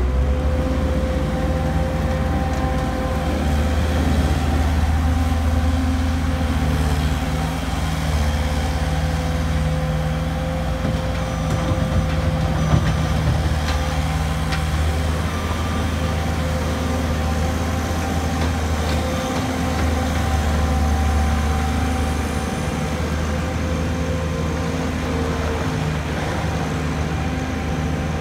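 Bobcat skid-steer loader's diesel engine running steadily as the machine drives and works its bucket, the engine note shifting a little over time.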